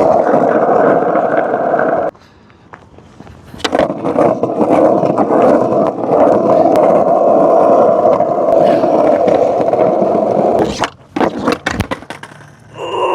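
Skateboard wheels rolling on pavement with a steady grinding rumble that stops about two seconds in and starts again after a short pause. Several sharp clacks of the board follow near the end, then a short pitched tone begins just before the end.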